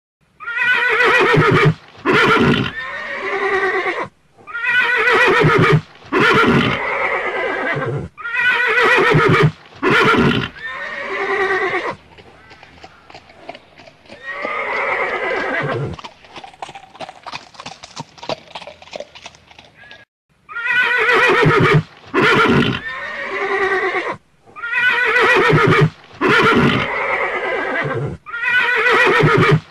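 A horse whinnying loudly, the same calls repeating about every four seconds like a looped recording. In the middle comes a quieter stretch of clip-clopping hooves with one softer whinny.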